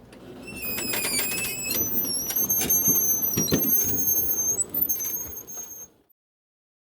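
Failed front wheel bearings on a Husqvarna riding mower squealing as the mower runs: a high-pitched squeal that shifts in pitch, over a low rumble, cutting off abruptly near the end. The bearings failed for want of grease at the inner lube point and run scalding hot.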